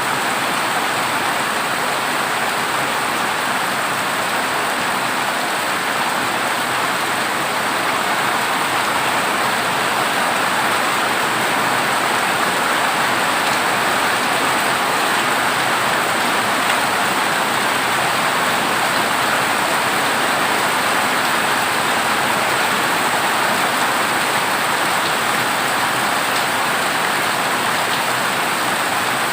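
Heavy rain falling steadily on a corrugated zinc roof, an even, unbroken hiss.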